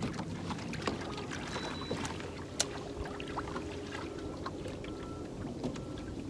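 Steady low hum aboard a small fishing boat, with scattered light clicks and taps and one sharper tap about two and a half seconds in. Short high beeps repeat a little under a second apart in the second half.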